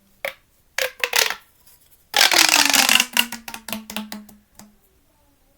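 Plastic pop tube fidget toy being handled and stretched: a few sharp clicks, then about two seconds in a loud crackling rasp as its ridges pop open, trailing off with a low tone.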